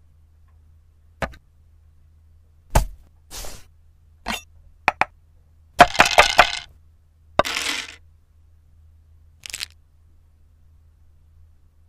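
A knife cutting through a carrot on a wooden cutting board: a string of separate sharp cracks and short crackling cuts, with a rapid cluster of clicks about six seconds in.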